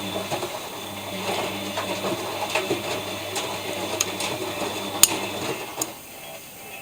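ELIN WA 14 M washing machine running: a steady motor hum with scattered mechanical clicks and knocks, the hum stopping about five and a half seconds in.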